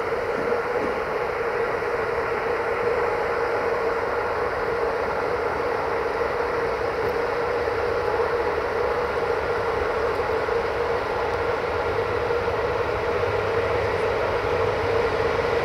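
CFR LE5100 (class 40) electric locomotive humming steadily: one strong constant mid-pitched tone over an even whirring noise.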